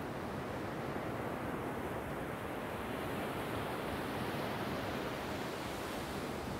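Ocean surf breaking and washing up onto a sandy beach: a steady rush of waves that swells slightly in the middle.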